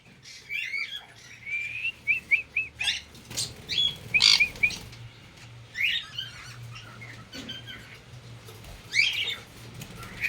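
Captive parrots in an aviary (cockatiels, conures, lovebirds) giving short chirps and squawks, scattered irregularly, over a faint low steady hum.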